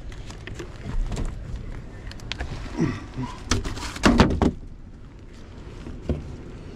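Knocks, thumps and scraping of someone clambering about in an attic, with a cluster of louder thumps about three to four and a half seconds in.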